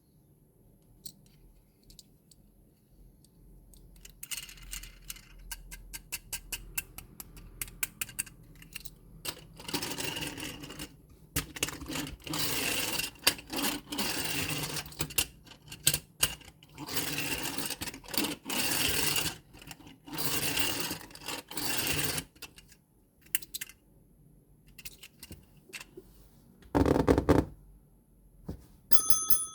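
Hands handling plastic toys and packaging: scattered clicks, then several long stretches of rattling and scraping, and a single heavy thump. A bell-like ding starts just before the end.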